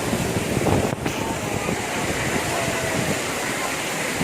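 Heavy rain pouring down, with strong wind buffeting the phone's microphone: a steady, even rush of noise.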